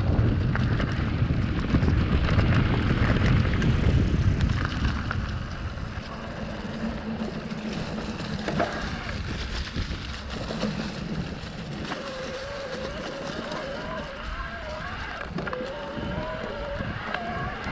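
Wind buffeting a GoPro's microphone as a Canyon Spectral:ON electric mountain bike runs down a dirt trail, loudest in the first few seconds, with knocks and rattles from the bike over bumps. In the second half a thin whine wavers up and down in pitch: the e-bike's Shimano drive motor working.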